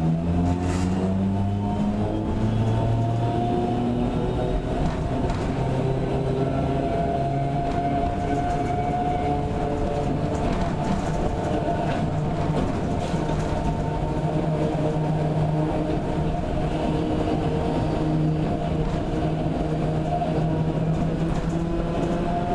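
Sangi Railway 270-series narrow-gauge electric train running, heard from inside the car: the traction motors and gearing whine, several tones drifting slowly up and down in pitch as the speed changes, over a steady rumble of wheels on rail.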